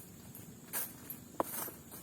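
Footsteps crunching on dry forest litter, about one step every 0.7 s, with a single sharp click about one and a half seconds in.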